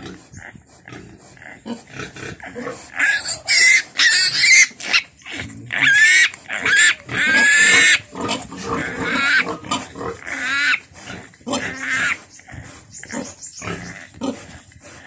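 Newborn piglet squealing repeatedly as it is held up and its umbilical cord is tied with string. The loudest, longest squeals come about three to eight seconds in, with shorter squeals before and after.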